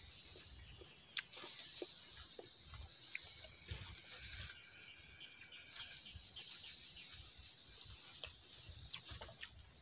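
Insects keep up a steady high-pitched drone. Over it come scattered small clicks and soft smacks as rice is eaten by hand from a clay plate.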